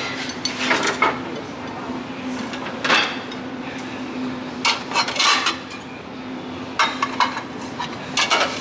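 Glass and metal dishware clinking and knocking as a pressed-glass bowl and a gold-tone metal butter dish and lid are picked up and set down on a metal store shelf, in several short bursts of clinks. A steady low hum runs underneath.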